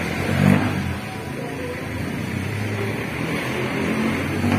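Steady low background rumble, with brief indistinct voices about half a second in and again near the end.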